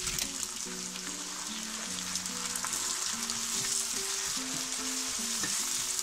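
Chopped tomatoes and onions sizzling in a hot frying pan while a wooden spatula stirs them, with soft background music underneath.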